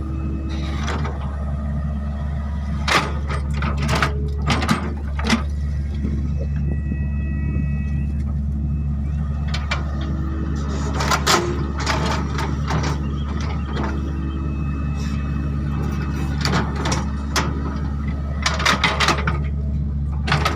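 Excavator's diesel engine running steadily under load, with repeated sharp clanks and knocks from the working machine.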